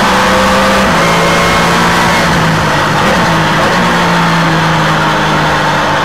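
Trans Am race car engine heard from on board at speed, running loud at high revs over wind rush, with its pitch stepping down about a second in and again near the end.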